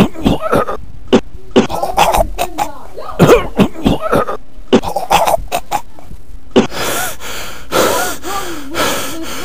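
Boys' voices during a rough scuffle: a string of short coughing, grunting bursts mixed with knocks, then from about six and a half seconds a longer, strained, wavering cry.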